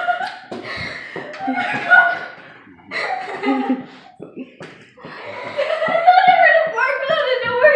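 Several people laughing and exclaiming excitedly, with a long high-pitched wavering voice in the last few seconds.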